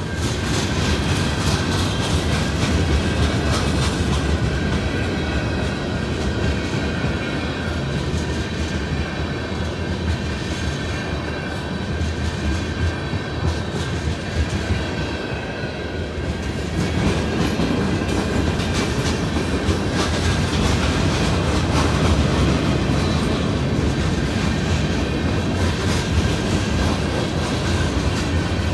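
Freight cars of a passing train rolling through a road crossing: boxcars and tank cars with a steady rumble, the wheels clicking over the rail joints.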